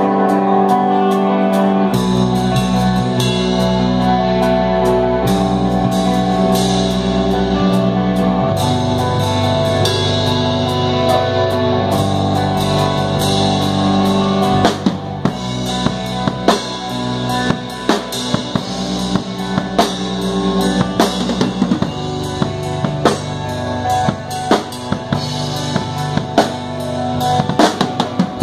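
Rock band playing live: an instrumental passage of held, layered chords, with low notes joining about two seconds in. About halfway through, drum kit hits come in and grow busier toward the end.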